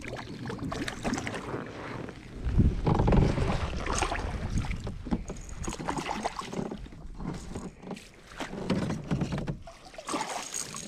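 A hooked striped bass splashing at the side of a kayak as it is landed, with irregular knocks and rustles of rod and net against the plastic hull. The loudest stretch, with a low rumble, comes about three seconds in.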